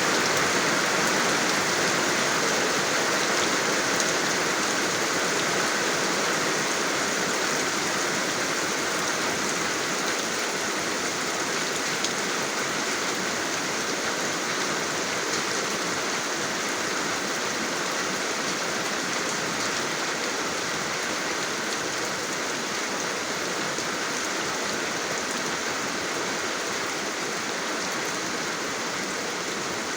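Steady rain falling, a dense even hiss with fine drop patter, easing very slightly.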